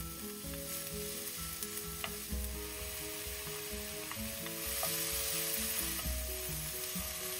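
Diced onion, sausage slices and chopped red bell pepper sizzling in oil in a nonstick frying pan, stirred with a wooden spoon, with a few light spoon taps; the sizzle grows louder about two-thirds of the way in, after the pepper goes in. Soft background music plays underneath.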